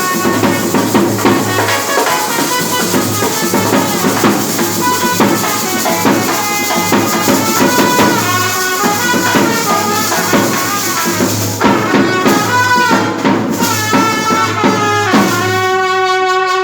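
Wedding band party music: a reedy wind melody, shehnai-style, with brass, over drums and jingling rattle percussion. Near the end the melody settles on one long held note that cuts off abruptly.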